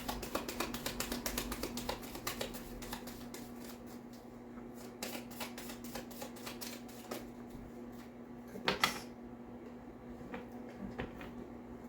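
Tarot cards shuffled by hand: a rapid run of card clicks for the first few seconds, then scattered flicks and snaps, with one louder card slap near the end as a card is drawn.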